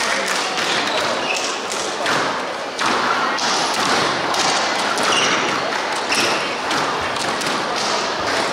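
Squash rally: the ball cracking off rackets and slapping the front wall and glass at an irregular pace, with short squeaks of court shoes on the wooden floor, echoing in a large hall.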